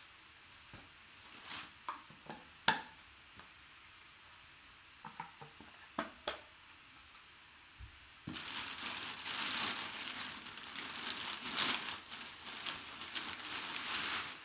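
A few light knocks and taps of handling, then from about eight seconds in, brown packing paper crumpling and crackling steadily as it is pulled out of a cardboard box.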